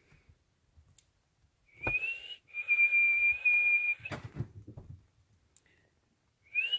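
A person whistling to call the cats: a short rising note that runs into one long held note, then a second rising whistle near the end.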